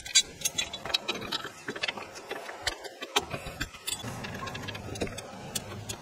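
Light, irregular metallic clicks and clinks of hub-bearing mounting bolts being threaded by hand into the steering knuckle, with the new wheel hub assembly shifting against the knuckle.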